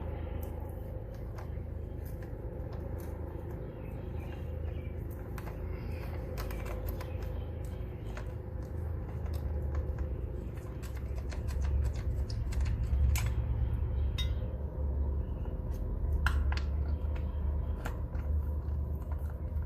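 Scattered metallic clicks and clinks of hand tools and mower parts being handled during work on a push mower's drive belt and belt guard, over a steady low rumble.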